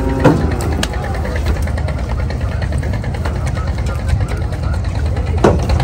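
An engine idling steadily with a low rumble, under the voices of people nearby.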